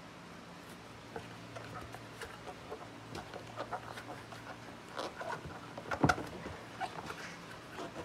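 Cardboard scraping, rubbing and rustling as a boxed product is slid and worked out of a corrugated cardboard shipping box: a run of short scrapes and knocks that grows busier after a few seconds, the loudest about six seconds in.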